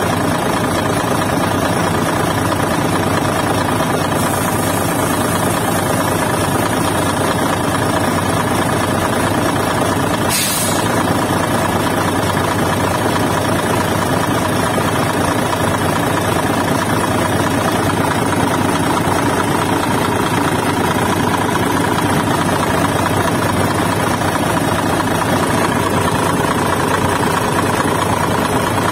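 Isuzu Giga tractor head's diesel engine idling steadily, with one brief burst of noise about ten seconds in.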